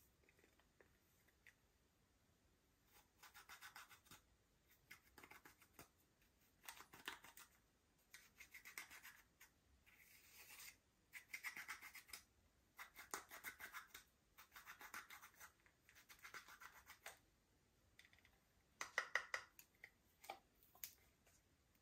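Glitter slime being mixed, heard as about a dozen faint, crackly strokes of roughly a second each, every one a quick run of fine clicks, with short pauses between.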